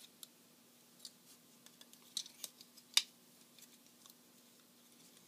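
Light clicks and ticks of hard plastic parts on a transforming robot figure being handled and rotated, with a sharper click about three seconds in, over a faint steady hum.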